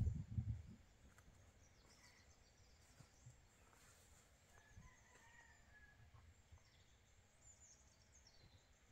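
Near silence: faint rural outdoor ambience with a few quiet bird chirps and calls, after a short low rumble right at the start.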